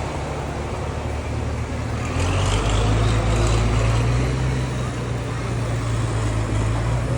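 A steady low mechanical drone of a motor, which gets louder and shifts up in pitch about two seconds in.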